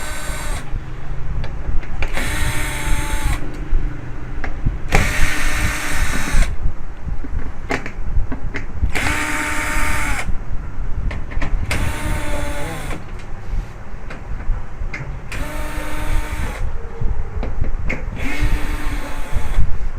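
Electric screwdriver running in short bursts, about six times, each one whirring up and winding down as it backs out the back-cover screws of a flat-screen TV.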